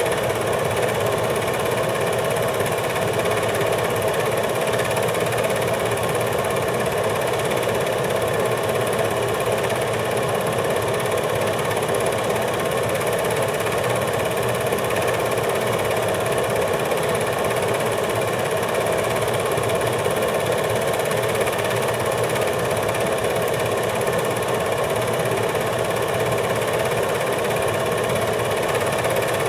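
8mm film projector running: a steady, unchanging mechanical whir with several fixed tones in it.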